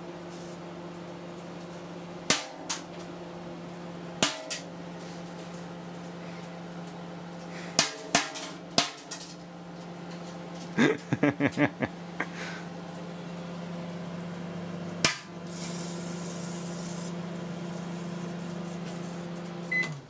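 Panasonic inverter microwave oven running with a steady hum while a telephone circuit board full of small electrolytic capacitors burns inside it. A handful of sharp pops sound through, with a quick run of crackles about eleven seconds in. The hum cuts off just at the end.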